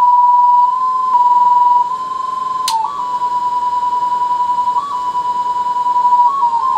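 A steady, whistle-like test tone coming through the repaired Dynacord DDL 12 digital delay and an amplifier, showing the unit now passes signal. Its pitch steps and bends slightly a few times as the controls are turned, there is a sharp click near the middle, and from then on its loudness wavers.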